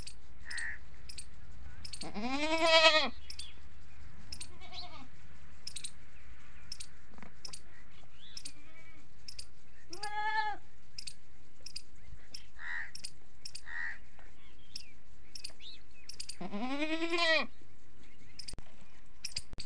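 Adult goat bleating three times, loud and quavering, with the first and last calls the longest, and a faint short bleat between the first two. The keeper puts the bleating down to hunger.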